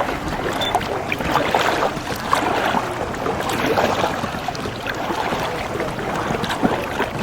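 Water splashing and lapping around a sea canoe as it is paddled, with many small, sharp splashes.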